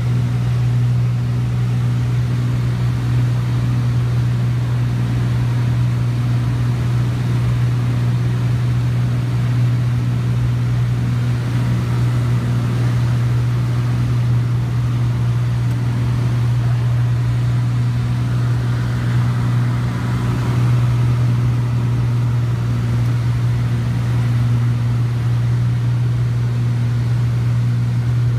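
Cabin drone of a Cessna 402C's twin turbocharged six-cylinder piston engines and propellers on final approach: a loud, steady low hum with a little rushing air noise above it, holding one pitch throughout.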